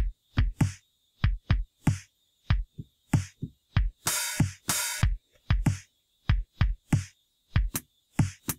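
Electronic drum-machine loop sequenced from a Launchpad Pro, with low kick thumps and lighter ticking hits, and two loud noisy snare- or clap-like hits about four seconds in. Extra drum notes are being played in live over the looping pattern with record armed.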